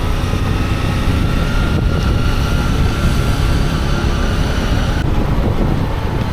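Motorcycle running on the move, a steady low rumble with wind buffeting the microphone.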